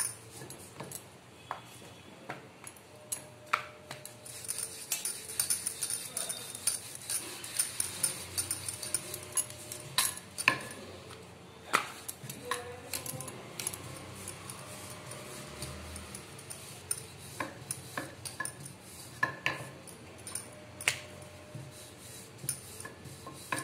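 Wooden rolling pin rolling out thin maida puri dough on a board, with frequent irregular clicks, light knocks and small clinks as the pin is worked back and forth.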